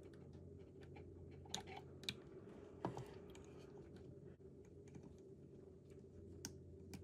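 Faint, sparse small clicks and taps from handling a DJI Mini 4 Pro's gimbal as its rubber damper foot is pulled through the mounting hole, over a faint steady hum.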